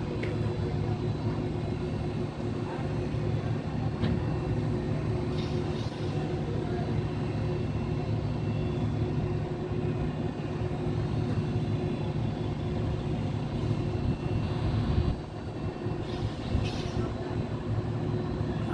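Heavy construction machinery's large engine running with a steady low drone and hum. The level dips briefly about fifteen seconds in, and short hisses come around five and sixteen seconds in.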